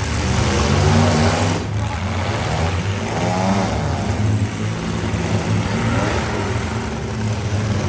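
Demolition derby cars' engines running, with revving that rises and falls in pitch a few seconds in.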